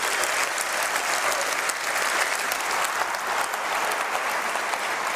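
Large theatre audience applauding steadily: a dense wash of many hands clapping.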